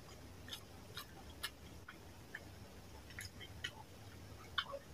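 Close-miked eating sounds of rice and fish curry being eaten by hand: fingers squishing the wet rice and a mouth chewing and smacking, heard as scattered soft wet clicks, the sharpest near the end.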